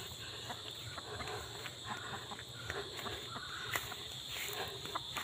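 Quiet rural outdoor ambience: a steady faint high hiss with scattered soft rustles and clicks, and no animal call.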